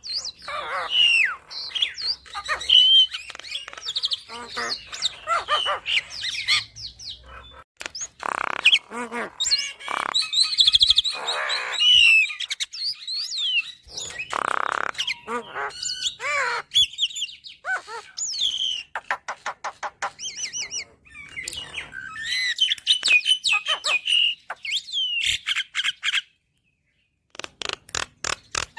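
Javan myna (jalak kebo) singing a long, varied song of whistled glides, harsh chatter and rapid clicking rattles, with a break of about a second near the end.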